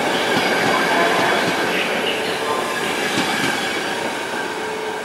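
České dráhy passenger coaches rolling past along the platform, steel wheels rumbling and squealing on the rails. The sound eases off as the last coach goes by near the end.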